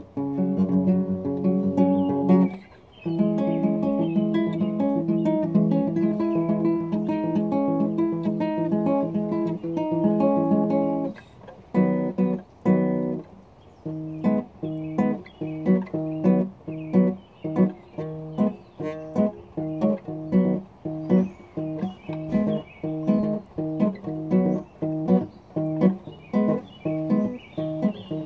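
Acoustic guitar being played: ringing, held chords for the first ten seconds or so. After a short break it switches to short, damped chords in a steady rhythm, about one and a half a second.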